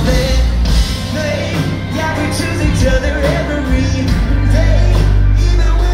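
Live country band playing: a man sings lead into a microphone over acoustic and electric guitars, drums and heavy bass.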